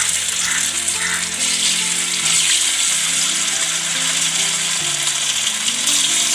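Marinated, cornflour-coated chicken pieces frying in hot coconut oil with curry leaves: a loud, steady sizzle. Background music with held low notes plays underneath.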